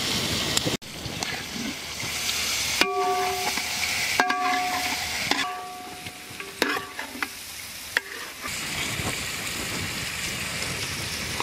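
Chicken leg pieces sizzling as they are fried and stirred in oil, ghee and spiced onion-tomato masala in a large pot. A few short ringing clinks come in the middle.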